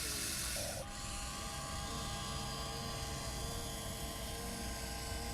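RC excavator's small electric motor whining steadily at a held pitch over a low rumble. A broad hiss stops abruptly about a second in.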